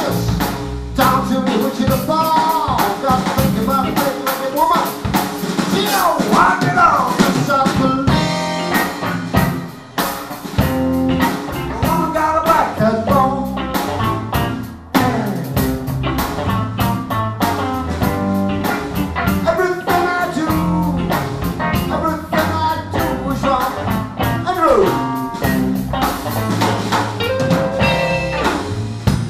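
Live electric blues band playing: electric guitars over a drum kit, with a lead line of bent, gliding notes.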